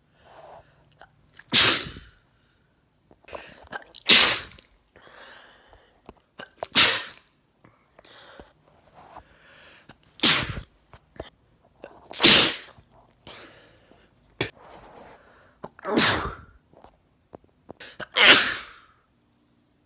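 A man sneezing seven times, a loud sneeze every two to four seconds, with fainter breaths in between.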